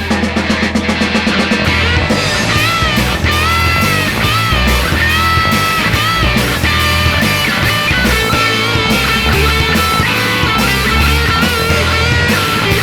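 Rock band playing an instrumental passage without vocals: a melodic lead line with bending notes over bass and drums.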